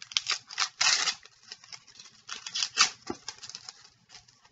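A trading card pack wrapper being torn open and crinkled by hand, in two bouts of sharp rustling: the first in the opening second, the second near three seconds in.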